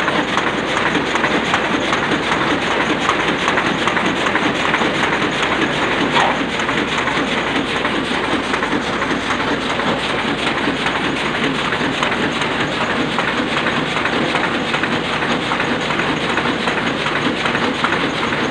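Sakurai Oliver 66 sheet-fed offset printing press running at a steady pace, a continuous mechanical clatter of many fine, rapid clicks.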